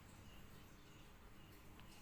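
Near silence: faint background hiss with a soft, high chirp repeating about every half second and a faint click near the end.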